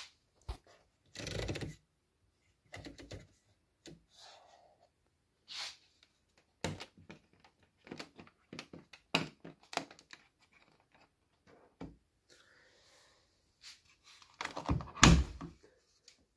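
Handling the controls of a Beko front-loading washing machine: scattered clicks and light knocks as the program dial is turned and the panel buttons are pressed, then a louder cluster of clunks and rustling near the end as the door is pulled open.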